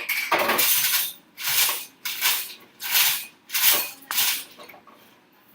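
Coco Crunch cereal being shaken out of its packet into a bowl: about six rustling, rattling bursts, the first about a second long and the rest short and spaced roughly half a second apart.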